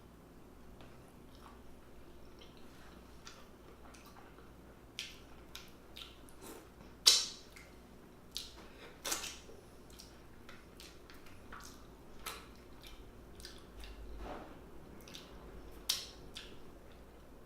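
Close-up eating sounds: wet mouth clicks and smacks while chewing. A few louder, sharper smacks stand out, the loudest about seven seconds in, with others near nine and sixteen seconds.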